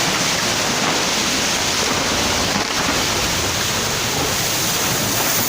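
Fast-flowing floodwater rushing steadily and loudly, with no breaks or distinct events.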